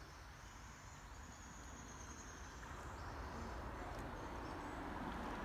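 Insects trilling with a steady, high buzz that fades out about three seconds in, over a soft hiss that grows louder.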